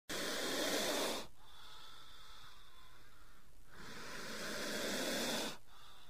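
Snake hissing: two long hisses, the first stopping about a second in, the second swelling up from about two and a half seconds and cutting off sharply near the end, with a faint steady high tone underneath.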